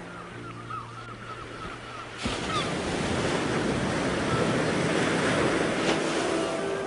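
Ocean surf: a wave breaks suddenly about two seconds in, and its rush of water carries on. Before it, steady low tones and a string of short chirping calls.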